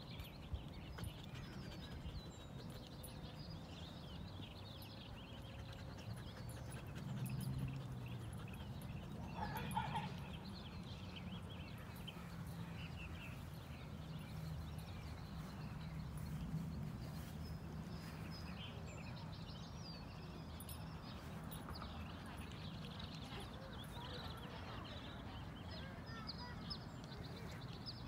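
Outdoor ambience of many small birds chirping and twittering over a low steady rumble, with a short louder sound about ten seconds in.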